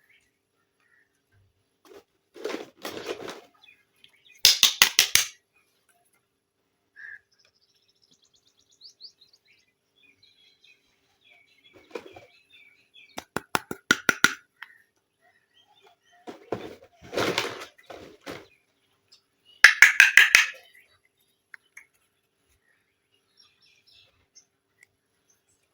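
Plastic toy parts and packaging being handled, with three short runs of rapid clicking. The loudest run is near the end.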